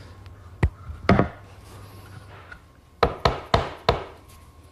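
Sharp knocks on wood as the glued frame pieces of a plywood workbench are tapped together into their dados: a single knock, a pair about a second in, then a run of four quick knocks about three seconds in.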